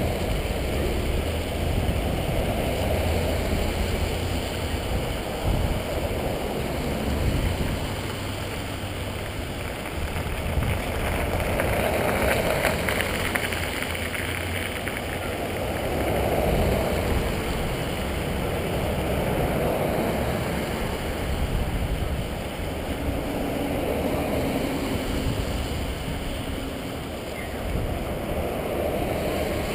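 Procession of vehicles passing one after another, tyre and engine noise swelling and fading about every four seconds.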